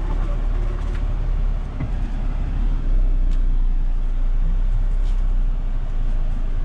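Mahindra Thar's diesel engine and drivetrain rumbling steadily as it drives over a rough dirt track, with a few faint clicks and a slight rise in loudness about halfway through.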